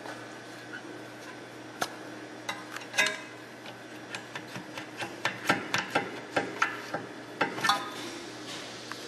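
Tools and brake parts being handled: a run of irregular, sharp metallic clicks and clinks, some ringing briefly, coming thickest from about two to eight seconds in.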